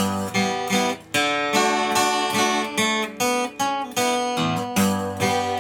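Acoustic guitar strummed in a steady rhythm, playing chord changes in an instrumental break between sung verses.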